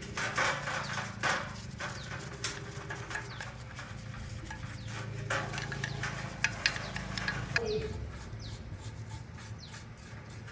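Scattered light knocks and clicks over a steady low hum, with birds chirping about three-quarters of the way through.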